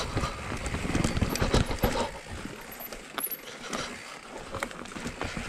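Cube Stereo 170 full-suspension enduro mountain bike clattering over roots and rocks on a forest singletrack: tyre knocks, chain slap and frame rattle. It is dense and loud at first, thins out and quietens about halfway through, then picks up again near the end.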